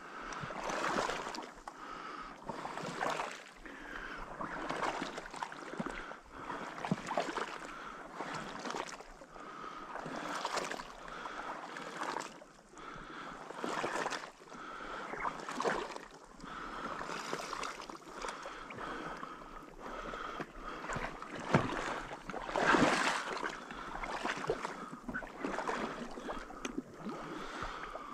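Water sloshing and splashing in a steady rhythm, about one surge every one and a half to two seconds, as someone wades through shallow marsh water; one splash a little after the middle is the loudest.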